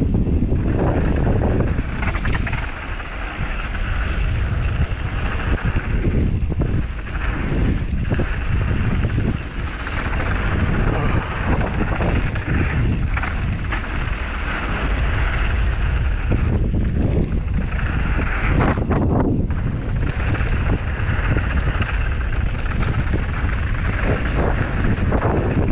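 Wind buffeting an action camera's microphone during a fast mountain-bike descent, over the steady crunch of knobby tyres rolling on a gravel trail and the rattle of the bike over bumps.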